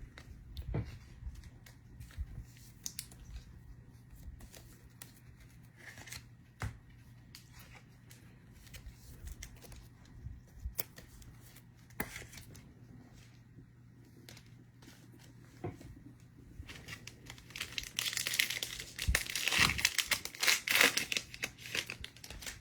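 Trading cards handled with scattered small clicks and taps, then a foil card-pack wrapper torn open and crinkled for several seconds near the end.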